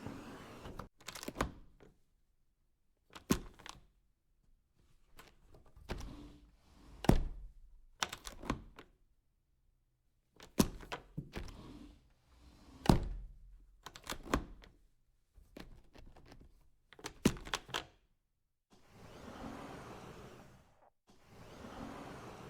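Doors being opened and shut: a series of separate latch clicks and solid thunks, about a dozen in all, with short silent gaps between them. Longer soft rushing stretches come at the start and again near the end.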